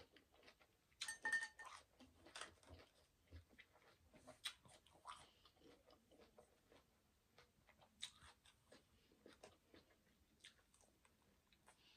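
Close-miked chewing and small mouth sounds, quiet, with many short clicks. A brief clattering clink about a second in is the loudest sound.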